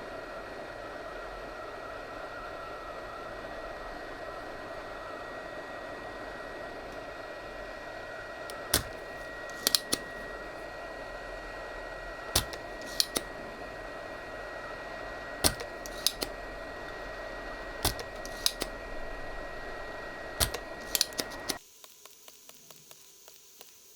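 Hot air rework station (Preciva 8786D) blowing steadily with a thin high whine, while a spring-loaded solder sucker snaps about a dozen times, singly and in quick pairs, clearing solder from a circuit board's through-holes. The hot air cuts off suddenly near the end.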